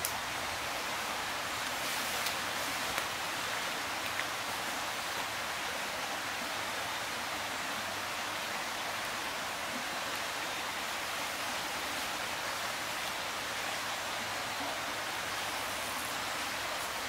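Steady rushing noise, even and unchanging, with a few faint ticks in the first few seconds.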